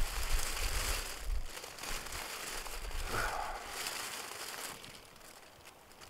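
Foil emergency thermal blanket crinkling and rustling as it is moved, dying away about five seconds in.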